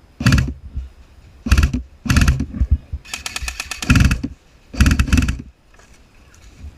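An airsoft gun firing on full auto in five short bursts over about five seconds, the longest burst about three seconds in.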